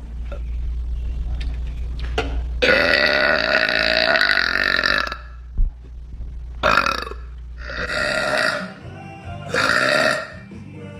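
A woman burping: one long, loud burp lasting about two and a half seconds, then three shorter burps.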